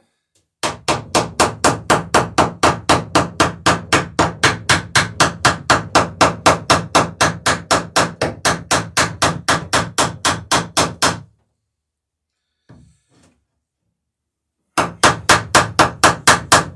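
Hammer riveting the sheer strake of a wooden dory: a long run of rapid, even taps, about four a second. The taps stop a little past halfway and start again near the end.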